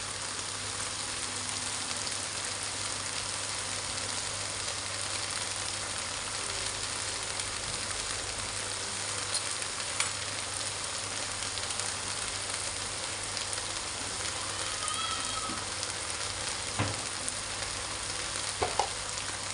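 Tempeh and vegetable stir-fry sizzling steadily in a wok on the stove, with a few short light clicks in the second half.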